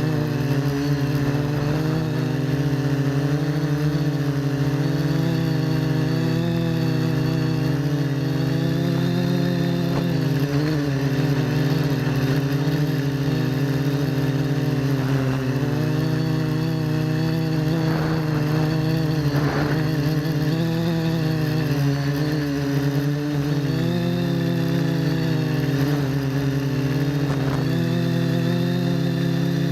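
FPV quadcopter's motors and propellers buzzing steadily, the pitch wavering up and down.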